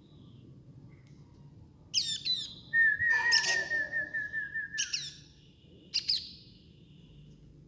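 Baby pet birds calling: a few sharp, high, downward-sweeping chirps, then a long wavering note held for about two seconds, and two more short chirp bursts after it.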